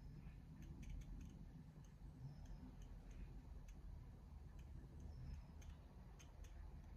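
Near silence: low room hum with faint, irregular small clicks a few times a second.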